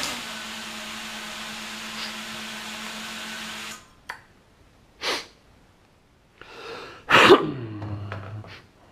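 Small brushless motors of a home-built quadcopter spinning at idle on the floor with a steady hum, cutting off suddenly a little under four seconds in as the drone is disarmed. Then come a click and a few short rustles and knocks, the loudest a sharp burst about seven seconds in.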